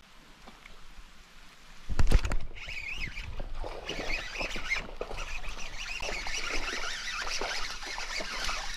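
A hooked haruan (snakehead) splashing and thrashing in a shallow ditch as it is played on a baitcasting rod. It starts with a sudden loud thump about two seconds in, then goes on as continuous splashing.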